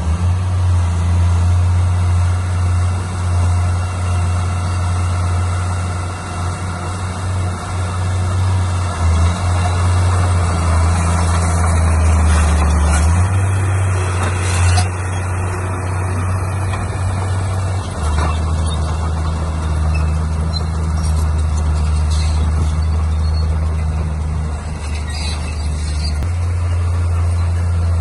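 Heavy diesel earthmoving machinery running steadily, its engine note shifting several times. About halfway through there is a stretch of brighter, higher scraping or squealing noise.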